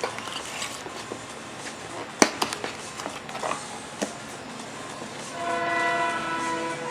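Clicks and knocks of a box and its contents being handled and opened, the sharpest about two seconds in, with a short scrape in between. Near the end a sustained chord of background music comes in and holds.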